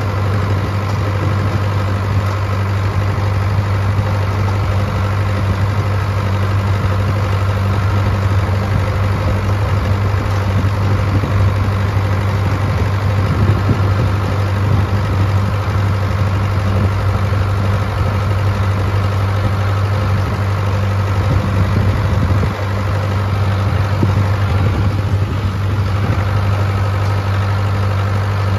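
Ford farm tractor engine running at a steady speed, heard from the driver's seat close to its upright exhaust muffler, a loud, even, deep hum that doesn't change.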